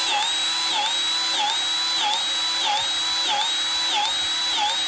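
Powered grease gun's motor whining steadily, its pitch dipping briefly about three times every two seconds, as it forces grease into a water-filled air compressor tank to build pressure for a hydrostatic test.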